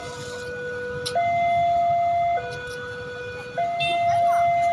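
Railway level-crossing warning alarm, a two-tone electronic signal switching back and forth between a low and a higher note, each held about a second, the higher note louder. It signals that a train is approaching and the crossing is closed.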